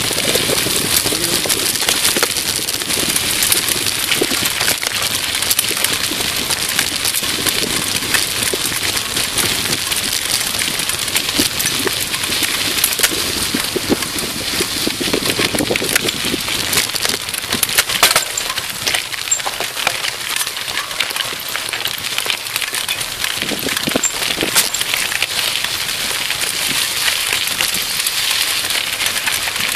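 Bicycle tyres rolling over a gravel track: a steady crackling hiss with frequent small clicks and a few sharper knocks.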